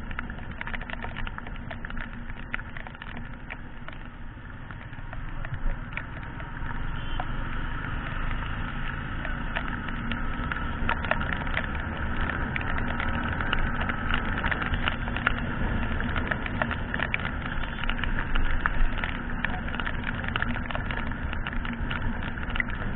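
Riding a Yamaha sport bike in heavy rain, heard from a helmet camera: a steady rush of wind and engine with a low rumble, peppered with many small sharp ticks of raindrops striking the helmet and camera. It grows somewhat louder about six seconds in.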